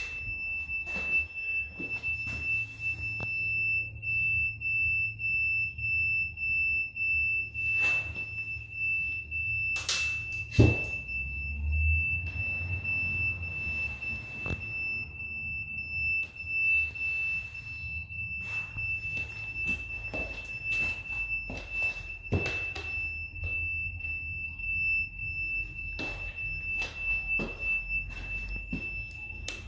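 A steady high-pitched electronic beep tone, pulsing regularly in level, with scattered knocks and clicks of the scooter being handled and one loud knock about ten seconds in.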